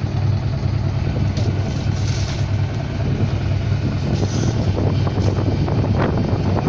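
A fishing boat's engine running steadily, a low drone under a continuous hiss of wind and water.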